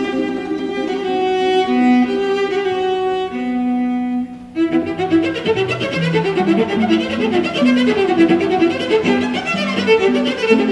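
Cello and concert harp playing together: the cello draws long bowed notes over the harp. About four and a half seconds in, after a brief dip, the music turns to quick running notes.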